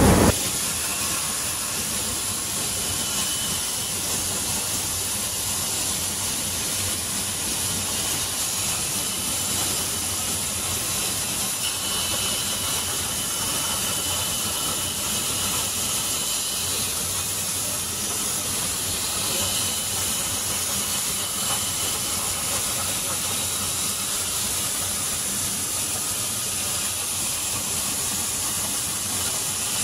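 Thermal cutting torch of a CNC cutting machine hissing steadily as it cuts steel, with a faint high whistle that comes and goes.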